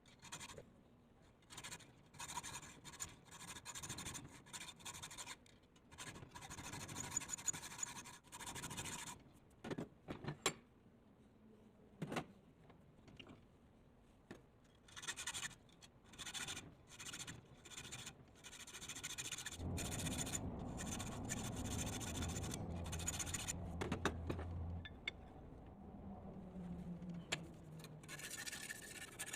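Repeated hand strokes of a tool rasping across metal, each stroke ringing a little. Partway through, a steadier humming, like a small motor, runs for about five seconds.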